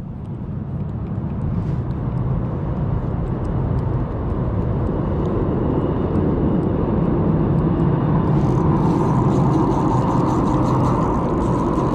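A motor vehicle's engine rumble that grows steadily louder over several seconds and then holds, as of something approaching.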